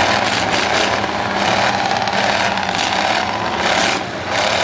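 Several demolition derby cars' V8 engines running and revving loudly together.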